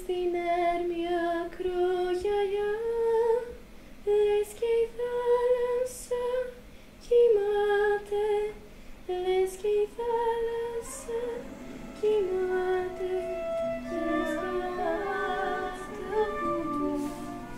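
A female voice singing a slow melody unaccompanied, holding each note. About eleven seconds in, more voices or parts join in overlapping harmony.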